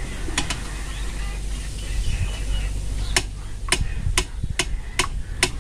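Perforated metal boondi ladle tapped against the rim of a metal vessel: a double clink under half a second in, then a run of about seven taps at roughly two a second, over the low sizzle of boondi frying in oil.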